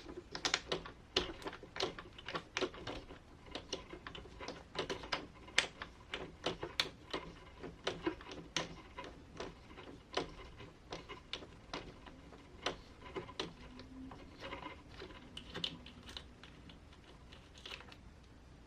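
Irregular light clicks and taps of small hard RC car parts being handled on a workbench, a few a second, thinning out near the end.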